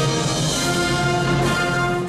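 Concert band playing a march live, with clarinets, euphoniums, trombones and trumpets sounding together in held chords.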